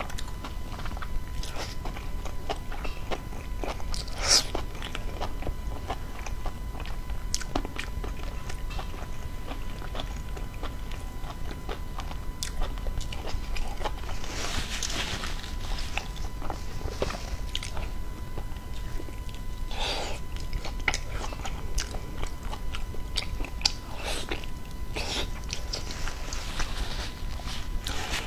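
Close-miked eating sounds: biting into and chewing a soft, sauce-coated food, with scattered short clicks and wet smacks, over a faint steady tone.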